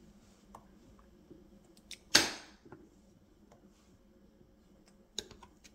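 A small kitchen knife slicing a stick of butter on a butter dish, making a few light clicks and taps, with one sharp, louder clack about two seconds in.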